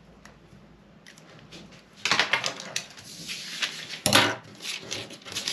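Pattern paper being handled and cut with scissors: rustling and snipping starting about two seconds in, with a sharp click a little after four seconds.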